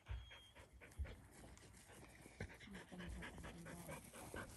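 A dog panting close by, quick short breaths a few times a second, plainer in the second half. Two low thumps come in the first second.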